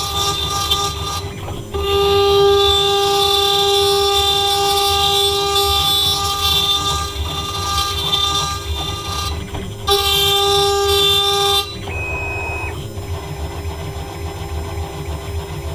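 CNC 6040 router spindle whining at high speed while its end mill cuts holes in aluminum square tubing, with short breaks between cuts. About 11.7 s in the cutting stops, and the spindle keeps running more quietly near the end.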